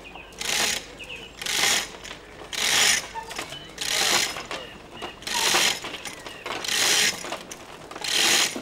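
Hand-operated chain block lifting a heavy timber frame: each haul on the hand chain gives a short rattling clatter of chain links and ratchet pawl, about one pull a second, seven in a row.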